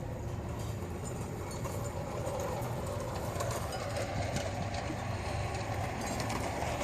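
LGB G-scale model train running steadily along garden track, a low motor hum with faint clicks from the wheels on the rails.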